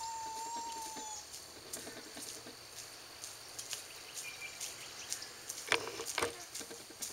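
Footsteps of a handler and dog walking at heel, with scattered light clicks and a few sharper knocks about six seconds in. A single steady, slightly falling whistle-like tone lasts about a second at the start.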